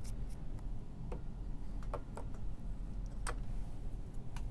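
A handful of light clicks and taps as a small plastic flux bottle and a soldering iron are handled on a workbench, the sharpest about three seconds in, over a low steady hum.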